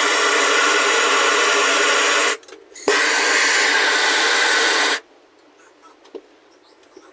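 Plumber's soldering torch burning with a steady loud hiss. It cuts off briefly a little over two seconds in, comes back, then shuts off about five seconds in, leaving only small clicks.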